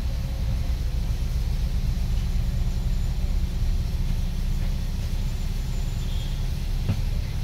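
Steady low rumble of a double-decker bus engine and running gear, heard from inside the cabin as it creeps along in traffic, with a single sharp click near the end.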